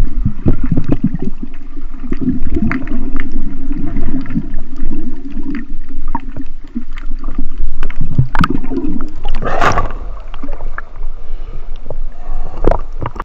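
Muffled underwater rumbling and bubbling of sea water against an action camera's waterproof housing, with many small knocks and clicks. A louder rushing splash comes a little before ten seconds in.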